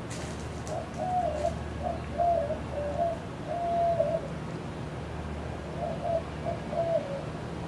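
A dove cooing in two phrases of short, low hoots, over the steady hum of a Casablanca Delta II ceiling fan running.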